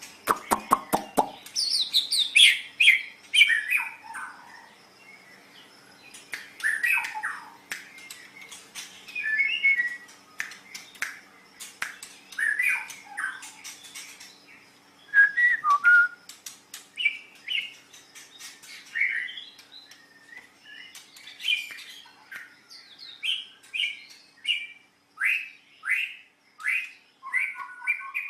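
White-rumped shama (murai batu) singing a varied song of loud whistled phrases, many falling in pitch. A quick run of sharp clicks comes at the very start, more clicks are scattered between the phrases, and a row of quick falling notes comes near the end.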